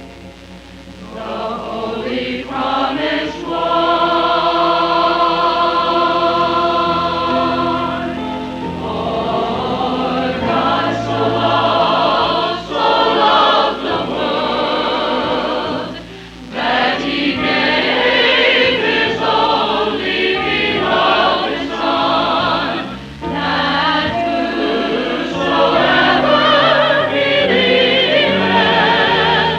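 Church chancel choir singing in harmony, holding a long chord a few seconds in and then moving through faster phrases.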